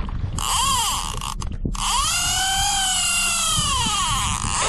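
Conventional fishing reel's drag screaming as a hooked fish pulls line off: a short run, a brief break, then a longer run, rising and falling in pitch.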